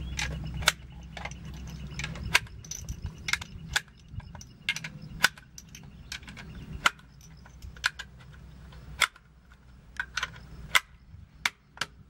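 Rifle cartridges being pressed one by one into a magazine: a string of sharp clicks at irregular intervals.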